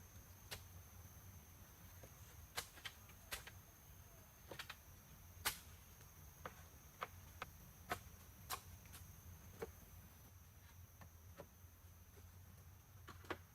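Scattered sharp clicks and ticks at irregular intervals, about one a second, over a faint steady high-pitched tone and a low hum.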